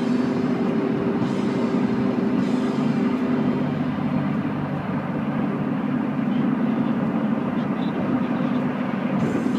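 Steady road and engine noise heard inside a car cabin at highway speed, with the car radio playing underneath; a held musical tone fades out a few seconds in.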